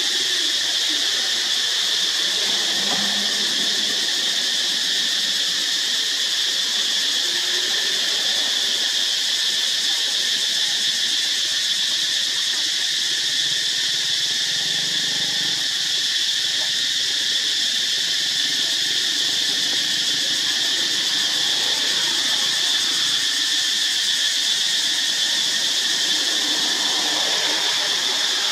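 Insect chorus making a constant high-pitched drone with no breaks.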